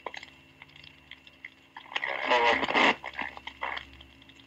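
Police two-way radio traffic on a 1963 Dictabelt recording, played back at half speed. A short stretch of voice comes about two seconds in, over a steady recording hum and scattered clicks.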